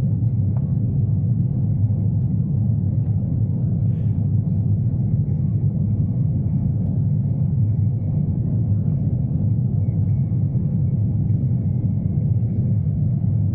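Airbus A350-900 cabin noise heard from an economy seat: a steady low rumble from the engines and airflow, with a faint thin high tone above it.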